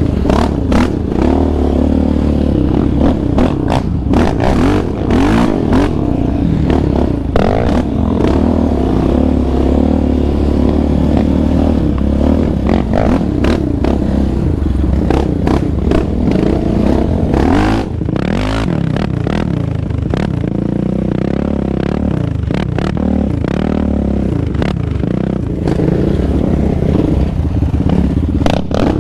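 2019 Yamaha Raptor 700R's single-cylinder four-stroke engine running under throttle on a dirt trail, its pitch rising and falling as it revs, with clattering and scraping knocks over the bumps. About 18 seconds in it eases off and runs quieter for several seconds, then picks up again near the end.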